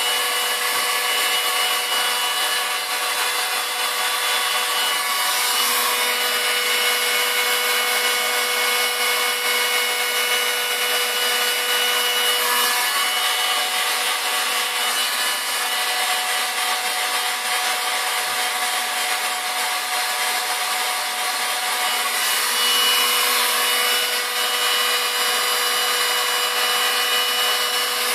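Electric heat gun running steadily: a constant rush of blown air with a fan-motor whine, held on a part to soften old glue.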